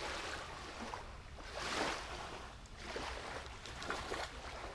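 Small lake waves lapping at the shore, a soft wash that swells and falls back every second or two.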